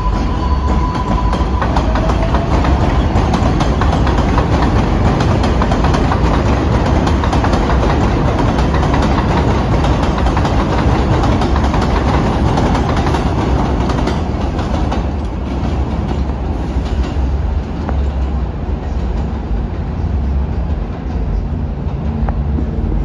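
A New York City Subway 4 train running past, its steel wheels clattering with rapid clicks over the rail joints. A steady high tone from the train stops about a second and a half in, and the noise eases somewhat in the last few seconds.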